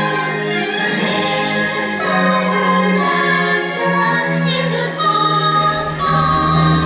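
Orchestral music with a choir singing, held chords changing about once a second.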